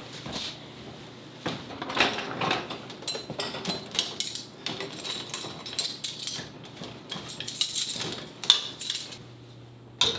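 Dishes, bowls and cutlery clinking and clattering against each other and the wire racks as a dishwasher is loaded: a long run of irregular sharp knocks and clinks.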